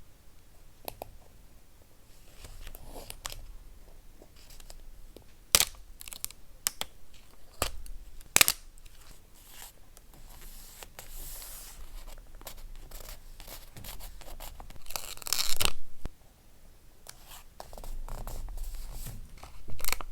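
Paper being handled and torn by hand, with scattered sharp taps and crackles. About fifteen seconds in there is a louder, longer stretch of rustling or tearing.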